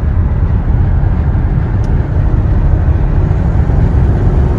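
Cabin noise of a Mercedes E55 AMG (W210) under way: its 5.4-litre V8 and tyre and road noise make a loud, steady low rumble.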